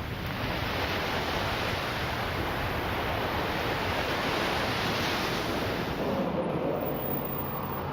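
Steady rushing noise that holds even throughout, with a faint low hum joining about six seconds in.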